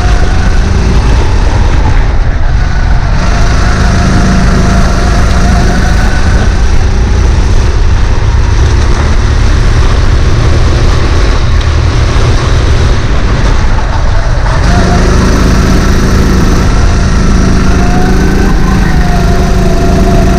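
Sodikart RX7 rental kart's 270 cc four-stroke engine running hard through a lap, its pitch rising and falling with the throttle through the corners, over a heavy low rumble.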